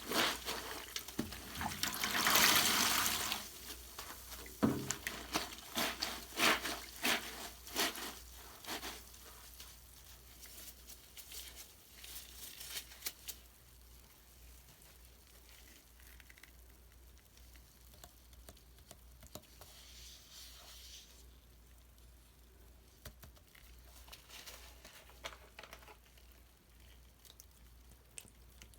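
Bath water and Mr Bubble bubble-bath foam: a burst of water noise a couple of seconds in, then many small clicks and crackles of foam bubbles popping, thinning out and growing fainter over the rest.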